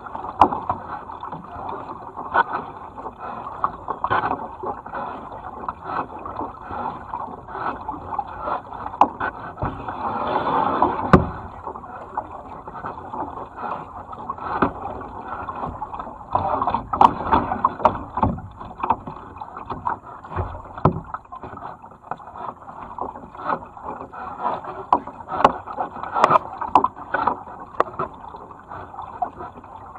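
Kayak paddles dipping into the water, splashing and dripping with each stroke about every second or so over a steady rush of water along the hull.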